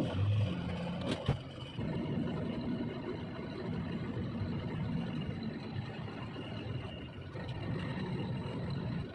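Tractor truck's diesel engine running steadily, a low rumble, with a couple of short clicks in the first second or so.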